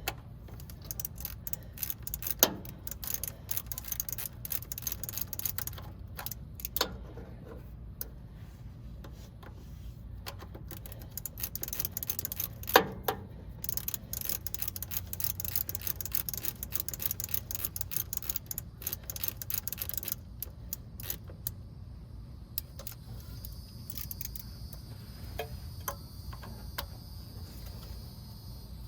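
Ratchet wrench clicking in quick runs while nuts are tightened on the starter's wiring terminals, with two sharper metal knocks. Crickets chirp steadily in the last few seconds.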